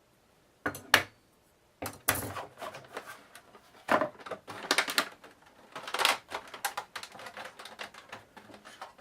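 Clicks, taps and crinkling of cooler packaging and parts being handled: two sharp clicks about a second in, then a busy run of clattering and rustling.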